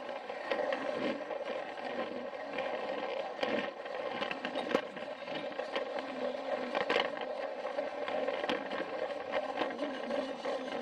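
Battery-powered Plarail toy train's small electric motor whirring steadily as it runs along plastic track, with irregular clicks and clacks as the wheels cross track joints and points.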